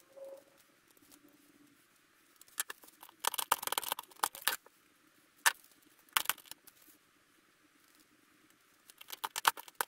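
Pliers clicking and snipping on small metal parts of a dismantled VHS player, in short bursts of sharp clicks about three seconds in, twice around five to six seconds, and again near the end.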